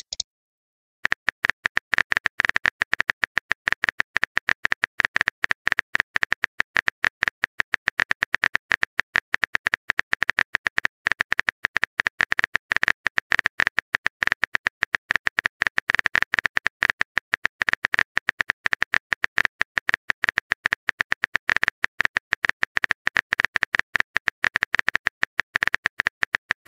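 Keyboard-typing sound effect of a texting-story app: a fast, steady run of short clicks, starting about a second in, as a message is typed out.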